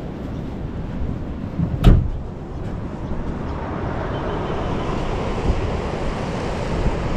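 Wind buffeting the microphone over the wash of surf, with one sharp knock about two seconds in; a brighter hiss of surf builds from about halfway.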